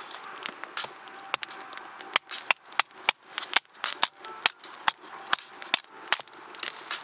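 Campfire crackling with irregular sharp pops and snaps as freshly lit kindling catches, the popping thickest and loudest in the middle of the stretch.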